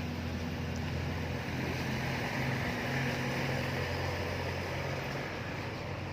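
A vehicle's engine running steadily: a low, even drone over a haze of travel noise.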